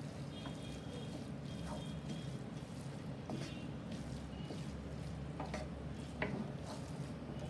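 Paneer masala frying gently in a nonstick kadai as it is stirred and mixed by hand: a soft sizzle with a few light clicks, over a steady low hum.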